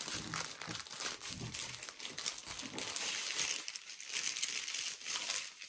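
Small plastic bags of diamond painting drills crinkling and crackling as they are handled and packed, with many small ticks of the resin drills shifting inside.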